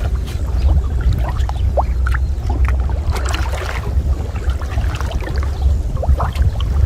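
Water splashing and dribbling in short scattered bursts over a steady low rumble.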